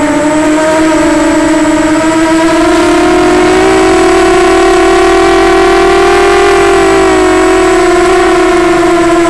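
Walkera Runner 250 quadcopter's four brushless motors and propellers whining in flight, heard close from the onboard camera. The pitch rises a little about three seconds in, holds, and eases back down near the end.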